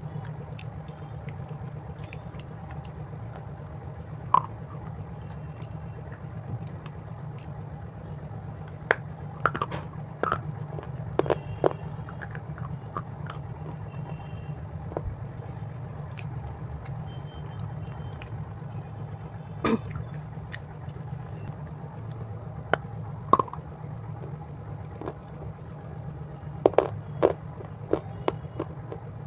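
Close-miked crunching and chewing of a crisp snack, in scattered sharp crunches with a cluster of them near the end, over a steady low hum.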